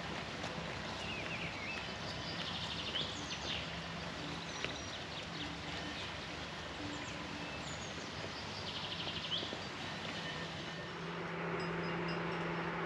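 Outdoor ambience with birds chirping and trilling, and a steady engine hum that grows louder near the end.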